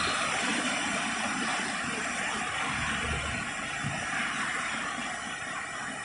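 Floodwater rushing over a river barrage's concrete weir, the river in flood near danger level: a steady, even rush of water noise, with a brief low rumble about three seconds in.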